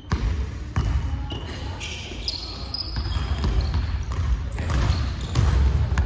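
Basketballs bouncing on a wooden gym floor, with several short, high squeaks of basketball shoes on the boards and players' voices mixed in.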